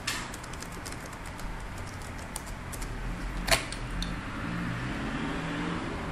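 Laptop keys being tapped one by one as a boot password is typed, ending about three and a half seconds in with one much louder key press that sends the password. A steady hum runs underneath.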